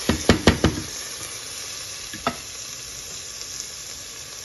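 Spinach and white radish curry sizzling in a metal pot as it is stirred and fried down (bhuna). A utensil knocks and scrapes against the pot several times in the first second, and once more a little after two seconds.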